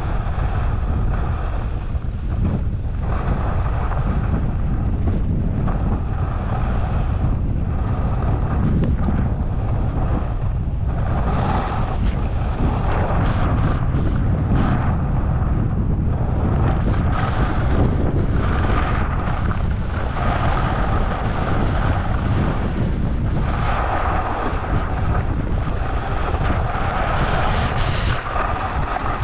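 Wind buffeting a helmet-mounted microphone at speed down a groomed ski slope, a continuous low rumble, with the hiss and scrape of edges on packed snow swelling and fading with each turn.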